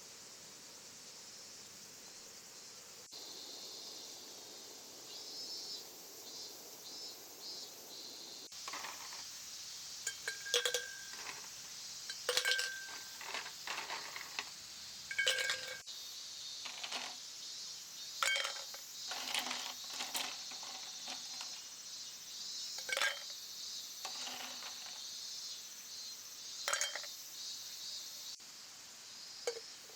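Camp dishes and utensils being handled: a string of sharp clinks and knocks, some ringing briefly, starting about a third of the way in, over a steady high insect chorus.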